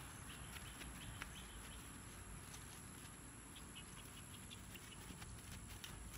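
Faint outdoor quiet with soft, distant hoofbeats of a horse trotting on grass toward the camera, a few faint ticks among them.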